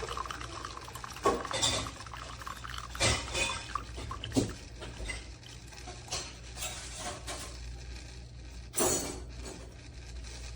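Hard kitchen items, dishes and coffee-maker parts, clinking and knocking as they are handled: about seven separate sharp knocks, the loudest near the end.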